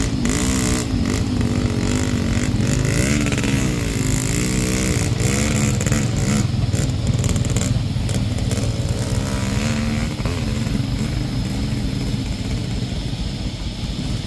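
Motorcycle engines revving up and down again and again, labouring under load as the bikes push through deep mud.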